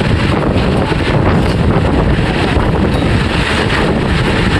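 Concrete boom pump truck's diesel engine running steadily as a loud, even rumble, with wind buffeting the microphone.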